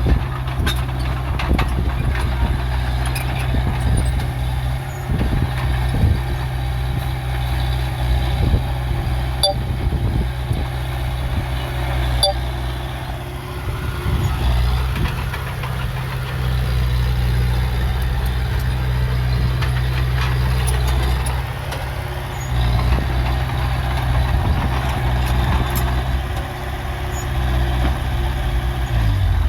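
Heavy diesel earthmoving machinery running steadily with a deep rumble, with scattered metallic clanks and knocks throughout.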